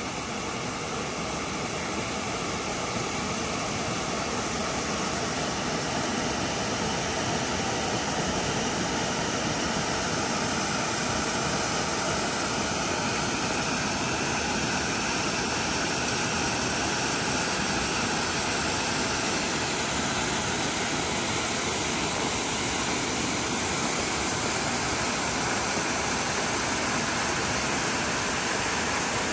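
Small waterfall pouring steadily into its plunge pool, an even, unbroken rush of water.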